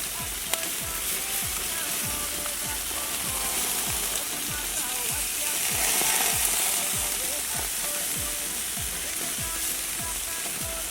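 Thin-sliced beef sizzling on a barbecue grill: a steady frying hiss that grows louder about halfway through. Background music with a steady beat plays underneath.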